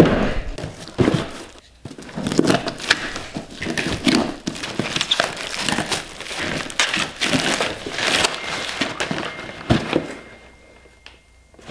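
Black plastic parcel wrap and packing tape crinkling and tearing as a package is opened by hand, in irregular bursts, with a cardboard box being handled; it dies down near the end.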